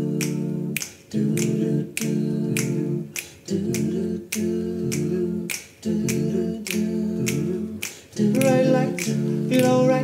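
Men's a cappella group singing sustained chord harmonies with steady finger snaps keeping the beat; a higher sung line comes in about eight seconds in.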